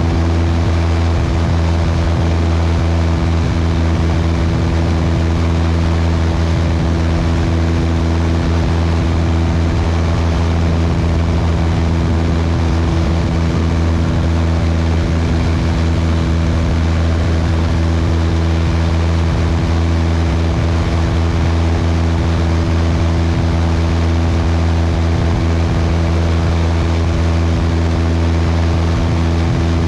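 Cessna 172's piston engine and propeller droning steadily in flight, a constant low hum with rushing air over it, heard from a camera mounted outside on the wing.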